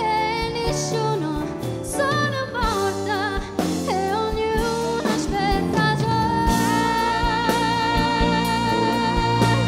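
Woman singing a slow, wavering melody with a live band of drums and keyboards behind her; in the second half she holds one long note with vibrato.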